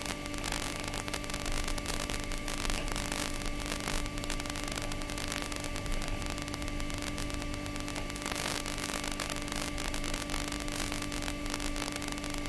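Model jet's engine idling: a steady hiss with an even low hum.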